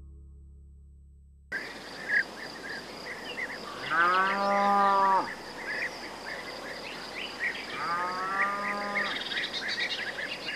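A cow mooing twice, each call a little over a second long, over a steady high insect drone and short bird chirps.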